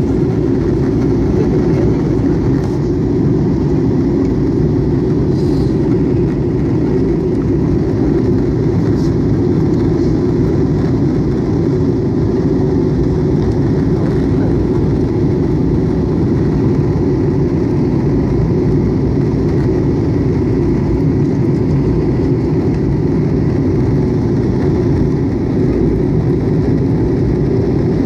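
Jet airliner cabin noise in flight: a loud, steady, even rumble of engines and airflow heard inside the passenger cabin.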